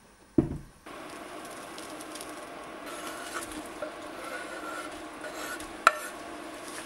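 A heavy earthenware pot is set down on the cooktop with a thump, then a steady hiss starts and runs on. Over it, crumbled ham is scraped off a wooden cutting board with a knife into the pot, with small ticks and one sharp knock near the end.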